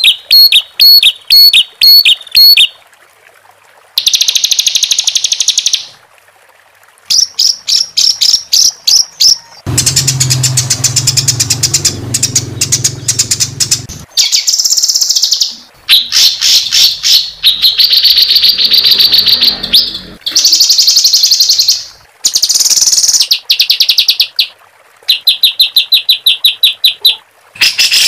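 Songbird song: rough, rapid runs of repeated high notes and trills ('tembakan' and 'roll'). They come in bursts of about two to four seconds with short pauses between. For about four seconds in the middle a lower buzzing sound runs under the notes.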